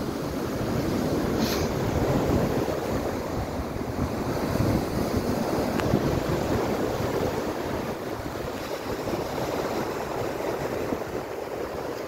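Sea water splashing and washing around under a pier at night: a steady, rushing wash of surf with small splashes and popping bubbles.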